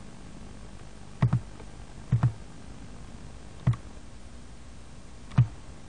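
Computer mouse button clicks: four short clicks spread over several seconds, the first two each heard as a quick double click, over a faint steady background hiss.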